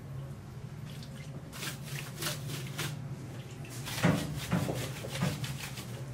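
Gloved hands handling raw, marinated chickens on metal rotisserie spits on a stainless steel table: a run of wet squishes and light clicks, the loudest a thump about four seconds in. A steady low hum runs underneath.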